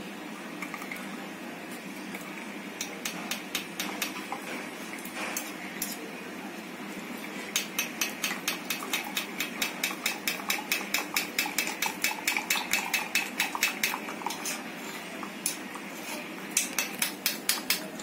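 Metal spoon clinking and scraping in a small stainless steel tea strainer, pressing boiled herbal decoction through into a plastic tumbler. Scattered taps at first, then a quick even run of taps, about four a second, from about seven seconds in to about fourteen seconds in, and a few more near the end.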